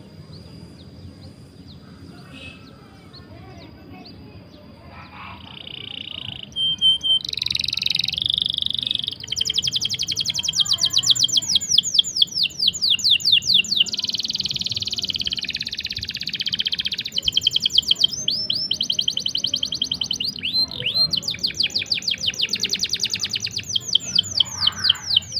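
Canary singing a long-rolling 'cuit cuit' song, the kind played to tutor or provoke canaries that have stopped singing. It is soft at first, then from about seven seconds in it runs long, rapid rolls of high chirps, broken by a few short pauses.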